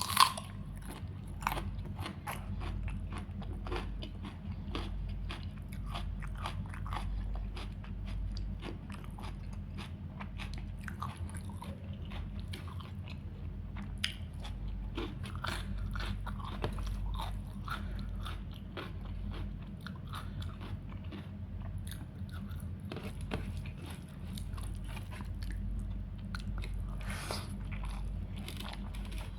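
Close-miked eating: chewing and crunching through a meal of chicken curry, rice and salad, with many short crisp crunches, the loudest right at the start, over a steady low hum.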